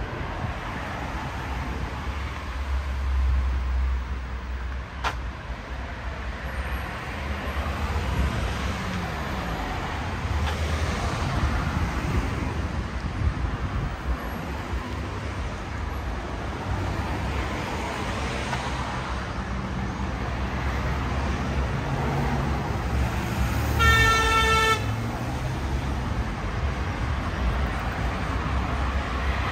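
Road traffic passing steadily on a city boulevard, with a vehicle horn sounding once for about a second near the end.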